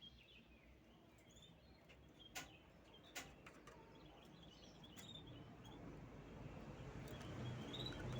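Canary giving faint, scattered soft chirps, with two sharp clicks a little under a second apart and a low hum growing louder near the end.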